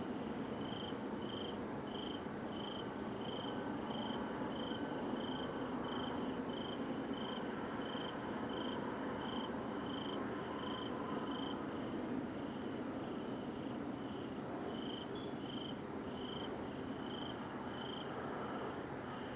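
A cricket chirping steadily, about one and a half chirps a second, over a continuous low rumble of the kind the uploader heard in the sky and could not identify.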